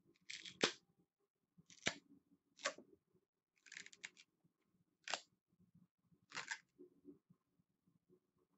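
3D-printed plastic parts snapping and crackling loose from a flexible removable printer build plate as it is bent by hand: a faint series of about six sharp clicks, roughly one a second.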